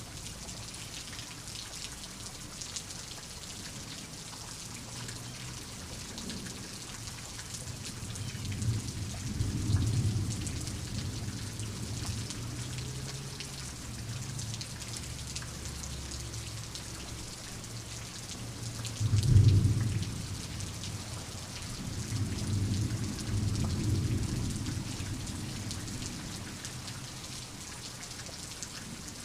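Steady rain falling, with rolls of thunder rumbling low underneath: one about a third of the way in, a louder, sharper clap about two-thirds in, and a longer rolling rumble soon after.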